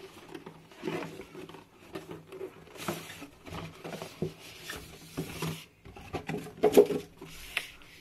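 Cardboard product box being handled and opened, its printed sleeve slid off: irregular rubbing and scraping of cardboard with light taps, and a sharper knock about seven seconds in.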